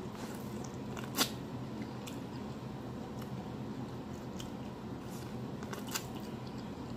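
Close-miked eating of corn on the cob: a sharp crunch of teeth through the kernels about a second in, then faint wet mouth clicks while chewing, over a low steady hum.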